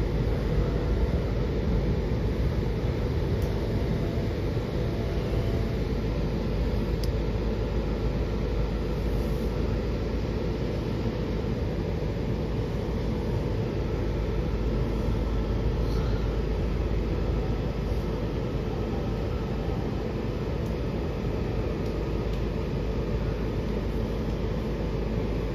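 Washington Metrorail Silver Line train running between stations, heard from inside the car: a steady rumble of wheels on rail and motor noise, getting a little quieter toward the end.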